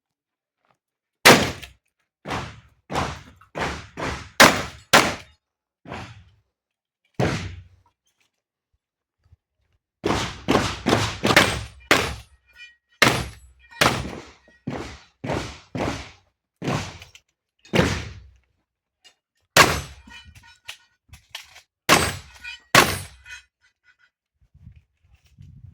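A string of shotgun shots fired in quick succession, about two dozen in all, with a pause of a couple of seconds partway through.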